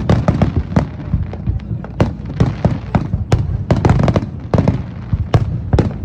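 Aerial fireworks bursting in quick succession: a dense, irregular run of sharp bangs and crackles, several a second.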